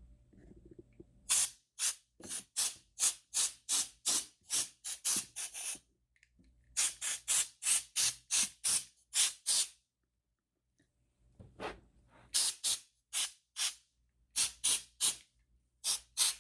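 Can of compressed-air duster sprayed in short, quick hissing puffs, about two or three a second, in three runs with short pauses between.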